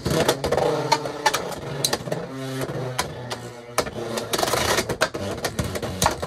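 Two Beyblade X spinning tops in a plastic stadium, whirring with a steady hum and clacking sharply several times as they strike each other and the stadium wall.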